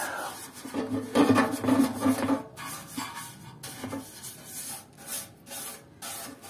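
Hand-held wire brush scrubbing the metal of a motorcycle fuel tank, a rough rasping rub in repeated strokes, about two a second in the second half. The brush is lifting paint softened by a paint remover of PU thinner and body-filler hardener.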